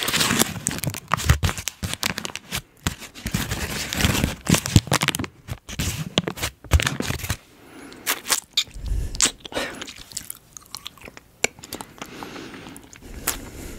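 Close-up mouth sounds of a hard-candy lollipop being bitten and crunched at the microphone, in irregular bursts of sharp crackles.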